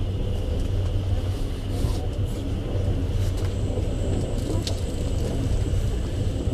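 Steady low rumble of a passenger railway carriage running along the track, heard from inside the carriage. A thin high tone comes in about halfway, and there is one sharp click shortly after.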